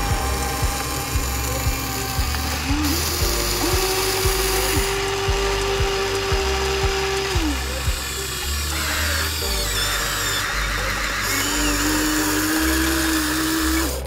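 Electric motor whine from a Huina remote-control toy excavator as its arm moves: two held whines, each rising at the start and falling away at the end, the second lower in pitch. Background music with a steady beat plays throughout.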